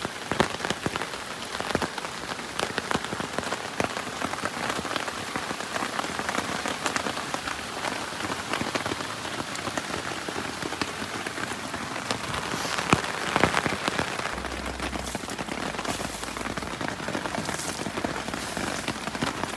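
Heavy rain falling on a DD hammock tarp: a dense, steady patter with many sharp individual drop hits, briefly heavier about two-thirds of the way through.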